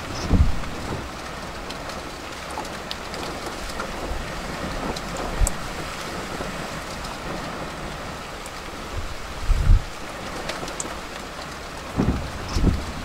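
Rain falling steadily on a vehicle's windshield and body, heard from inside the cab during a thunderstorm, with several short low thumps, the loudest nearly ten seconds in.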